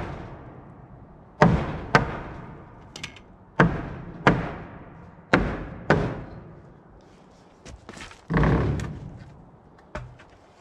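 Hammer striking a nailed-on wooden brace board to knock it loose: six sharp knocks, roughly in pairs, then a longer clatter about eight seconds in as the board comes free.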